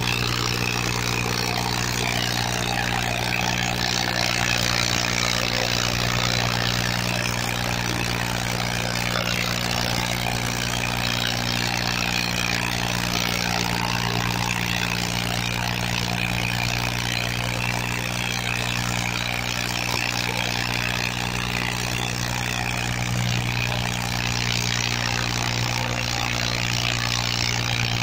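Farmtrac 45 tractor's three-cylinder diesel engine running steadily under heavy load as it drags chained harrows through ploughed soil.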